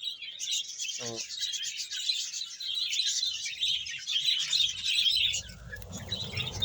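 A large colony of budgerigars chattering and chirping all at once in a dense, continuous twitter. A low rumbling noise joins in for the last two seconds.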